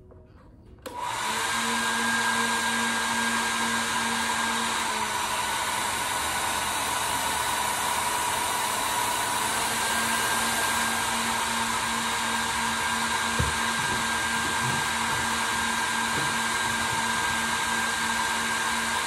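Handheld electric heat gun switching on about a second in and then running steadily: a loud fan-and-air hiss with a steady motor whine. The whine drops slightly in pitch about five seconds in and comes back up around ten seconds.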